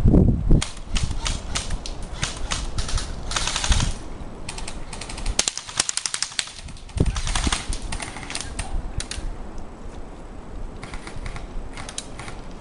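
Airsoft guns firing: scattered single clicking shots and rapid full-auto bursts, one about three seconds in and a longer one around six to seven seconds.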